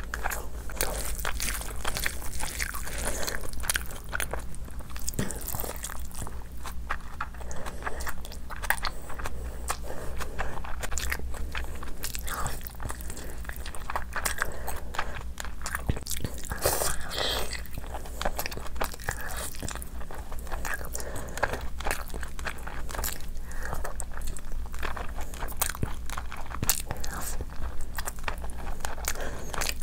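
Eating sounds of a person biting and chewing curried meat off the bone: a dense, irregular run of short wet clicks and smacks.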